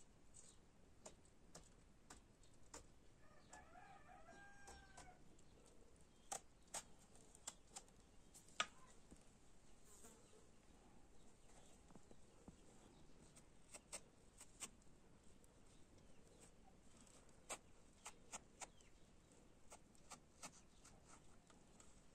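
Quiet, scattered clicks and taps of a small knife against eggplant and a steel tray as the eggplant is hollowed out and sliced. A chicken calls briefly about four seconds in.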